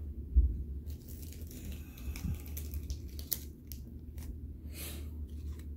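Trading cards and their packaging handled off-camera: crinkling and rustling, with a few short sharp clicks, starting about a second in, over a low steady hum.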